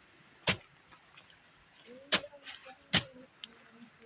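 Three sharp knocks, about half a second, two seconds and three seconds in, over the steady chirring of crickets.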